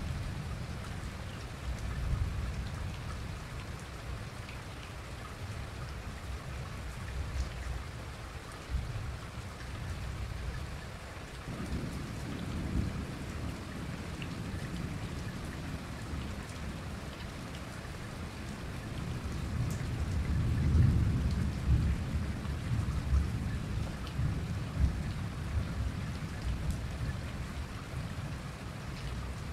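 Steady rain falling during a thunderstorm, with low rolling thunder rumbling throughout. The thunder swells about twelve seconds in and more strongly around twenty seconds in.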